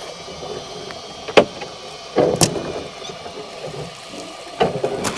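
Several sharp knocks and clicks from fishing tackle being handled on a small boat, the loudest about two and a half seconds in, over a quiet steady background.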